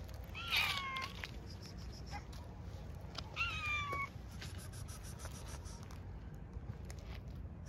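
A cat meowing twice, two short meows about three seconds apart, each sliding slightly down in pitch.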